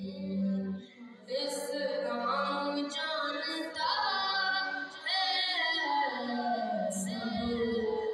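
A boy's solo voice singing a devotional kalaam unaccompanied, in long, ornamented melodic lines, with a short breath pause about a second in.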